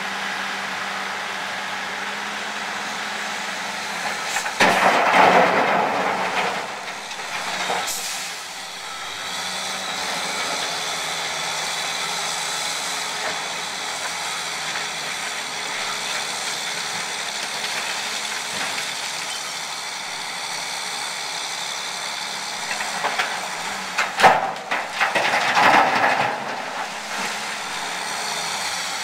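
An Aveling-Barford machine running steadily with an even hum, and two louder bursts of noise with a few sharp clicks: one about five seconds in and one shortly before the end.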